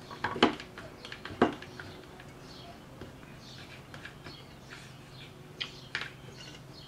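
Large plastic one-handed bar clamp being set and squeezed onto a brake master cylinder in a bench vise, pushing in the cylinder's spring-loaded piston: two sharp clicks about half a second and a second and a half in, then lighter clicks and scrapes.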